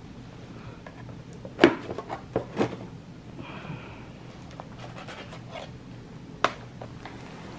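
A hard plastic plate cover is set down over a plate on a meal tray, and items on the tray are handled. This gives a cluster of sharp clicks and knocks, then one more a few seconds later, over a steady low room hum.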